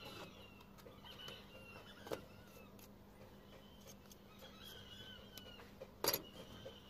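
Quiet hand work on a corrugated metal roof as a metal putty knife smooths roofing sealant, with a few small clicks and one sharp metallic clank about six seconds in, the putty knife or a tool knocking against the roof sheet.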